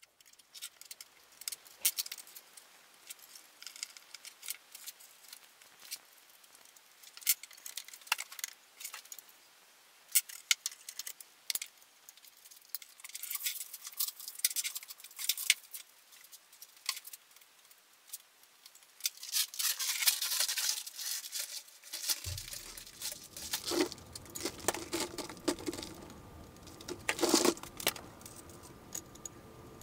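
Light clicks, rattles and crinkling from hands fitting parts on a small CNC router, including its clear corrugated dust-extraction hose. About two-thirds of the way in, a low steady hum starts underneath.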